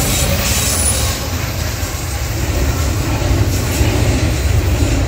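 Norfolk Southern intermodal freight train passing close by: a steady, loud low rumble from the diesel locomotives and the steel wheels of double-stack container cars on the rails.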